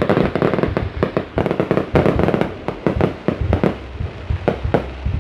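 Fireworks going off in quick succession: a string of irregular sharp bangs and pops, about three or four a second.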